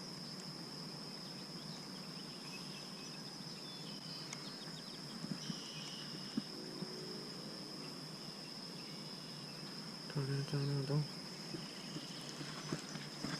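Insects droning steadily at one high pitch over a low outdoor hiss, with a brief low voice-like sound about ten seconds in.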